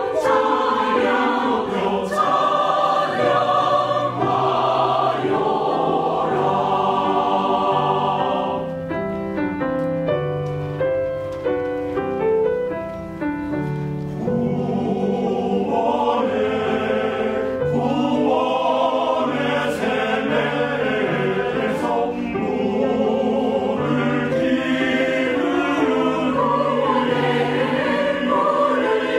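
Mixed church choir of men's and women's voices singing a hymn anthem in parts with accompaniment. About eight seconds in the voices drop out for a quieter piano passage of separate notes, and the choir comes back in about fourteen seconds in.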